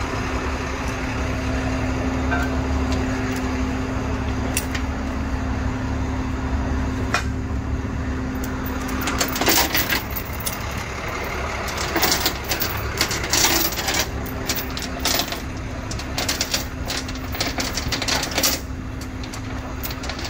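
A tow truck's engine idling with a steady hum. About halfway through, a steel tow chain clanks and rattles in short bursts as it is handled.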